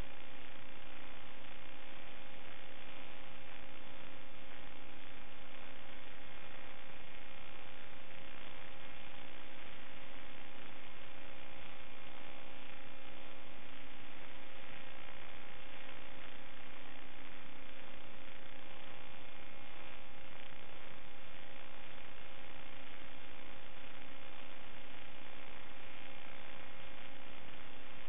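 Steady electronic hiss and hum with several constant tones, unchanging throughout: the empty audio channel of an analog FPV video link, recorded by the DVR.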